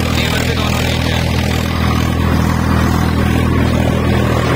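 Swaraj 855 tractor's three-cylinder diesel engine running steadily under load while it drives an 8-foot Param rotavator through the soil. The engine speed holds without dropping.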